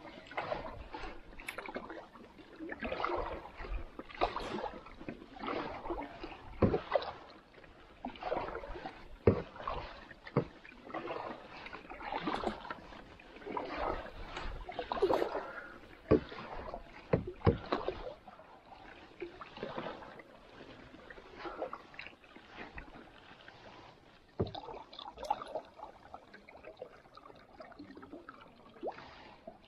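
Canoe paddle strokes in calm water: a swish and splash of the blade about every one and a half seconds, with a few sharp knocks among them. The strokes grow quieter and fewer over the last third.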